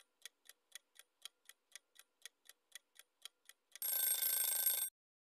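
Countdown-timer sound effect: quiet clock ticking, about four ticks a second, then a short alarm ring lasting about a second as the timer runs out.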